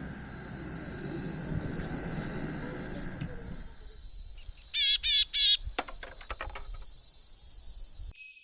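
Insects trilling steadily on one high pitch, with a bird giving a quick run of warbling chirps about halfway through. A low background rumble fades away in the first half, and everything cuts off abruptly just before the end.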